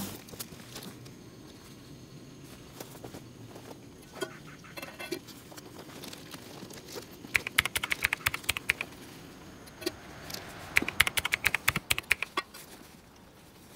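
Camp cookware being handled: two short runs of rapid light clicking and rattling about three seconds apart, with a few single knocks before them.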